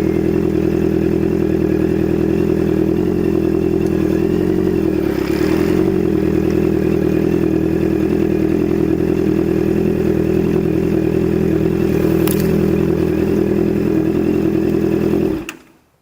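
Honda CBR650F's inline-four engine through an SC-Project S1 aftermarket exhaust, ridden at high speed and held at a steady, high engine note. The sound cuts off suddenly near the end.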